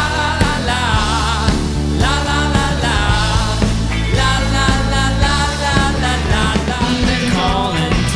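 A rock band playing a song, with a sung lead vocal over steady bass and drums.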